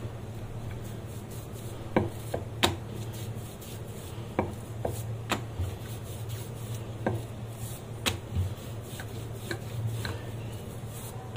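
A rolling pin rolls out thin papri dough on a greased work surface: a soft rub with irregular sharp knocks and clicks, about one or two a second, as the pin is lifted and set down. A steady low hum runs underneath.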